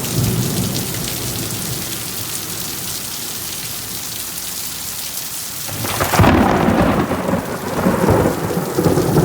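Steady rain falling, with a loud peal of thunder breaking about two-thirds of the way in and rolling on, swelling twice, to the end.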